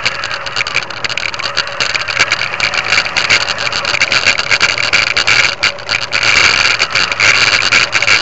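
Motor and propeller of a radio-controlled Extra 300 model airplane running as it taxis on asphalt, heard from a camera mounted on the model, with a steady hum and constant rattling. It grows somewhat louder about halfway through.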